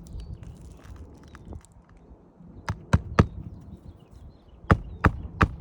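Hammer nailing an asphalt roof shingle: six sharp strikes in two quick groups of three, the second group about a second and a half after the first.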